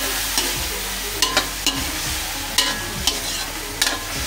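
Meat sizzling in hot oil in a metal wok while a metal spatula stirs it, with about seven irregular sharp clinks and scrapes of the spatula against the wok over a steady frying hiss.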